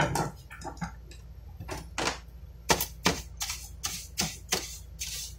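Irregular sharp clicks and taps of hand tools and small parts being picked up and set down on a workbench, about a dozen, the loudest at the very start.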